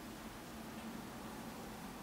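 Steady background hiss with a faint low hum: room tone, with no distinct sound from the puppy.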